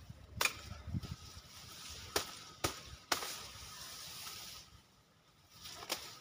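Sickle chopping through elephant grass stalks at the base of the clump: about five sharp cracks spread over several seconds, with a stretch of rustling after the fourth.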